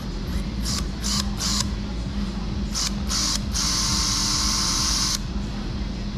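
Colibri II battery-powered surgical drill boring a screw hole into a dog's tarsal bone. It runs in several short bursts, then one longer run of nearly two seconds.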